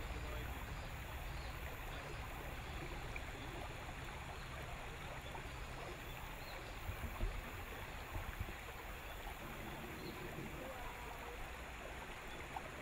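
River water washing and lapping against the hull of a small wooden boat, a steady low noise, with a few low knocks about seven and eight seconds in.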